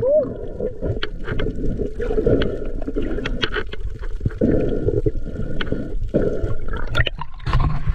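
Muffled water gurgling and sloshing around a spearfisher swimming in the sea, with scattered small clicks.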